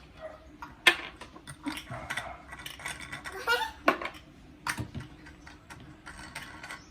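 Clicks and knocks of hard plastic pump parts and accessories being handled and fitted together, the sharpest click about a second in, with a brief faint voice midway.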